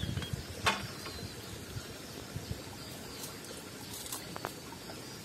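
Faint background ambience: a low even rumble with scattered light ticks and clicks, one sharper click under a second in.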